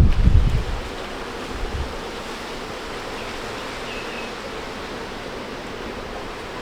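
Wind blowing outdoors: a steady hiss, with gusts buffeting the microphone in the first second and again briefly about two seconds in.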